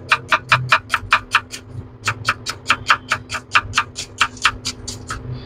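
Kitchen knife rapidly slicing an onion on a wooden cutting board: quick, even knocks of the blade striking the board, about six or seven a second, with a brief pause about two seconds in.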